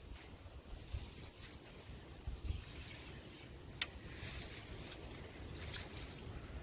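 Outdoor riverbank noise while a hooked fish is being played: a low rumble and a steady hiss, with a few soft knocks and one sharp click about four seconds in.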